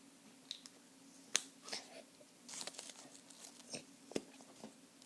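Scattered light clicks and short rustles of small packaging and objects being handled, with one sharper click about a second and a half in, over a faint steady hum.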